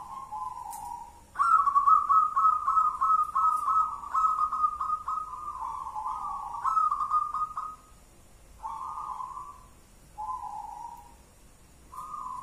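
Zebra dove (perkutut) cooing: a coo that ends about a second in, then a long, loud run of rapid stuttering coo notes lasting about six seconds, followed by three short coos.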